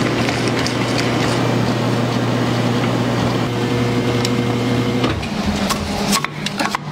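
Frigomat batch ice cream freezer running, its motor humming steadily as the dasher churns, with scattered small clicks. The hum shifts about five seconds in and dips briefly near the end.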